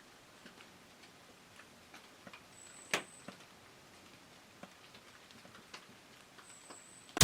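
Faint, quiet ambience with scattered small ticks and taps, one sharper tick about three seconds in, and two brief high chirps.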